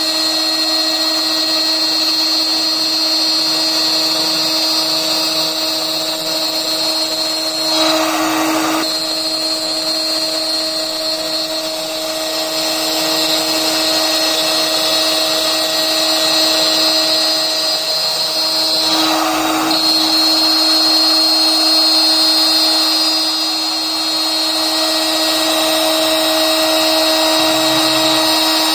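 CNC router's HSD electro-spindle running with a steady high whine as its end mill cuts the inner contour of a PVC sheet. Twice, about a third and two-thirds of the way through, a brief rush of cutting noise rises over the whine.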